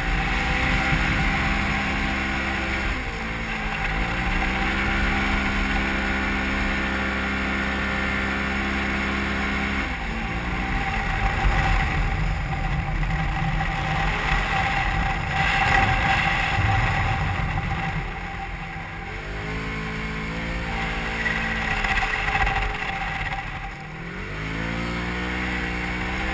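Polaris XP 1000 side-by-side's parallel-twin engine heard from inside the open cab, its revs rising and falling with the throttle over the dunes. Through the middle stretch the engine note is buried under a rushing noise of wind and tyres.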